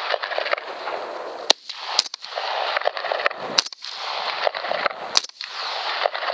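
Handling noise on a rifle-mounted night-vision scope: surges of rustling, each about a second long, broken by several sharp clicks.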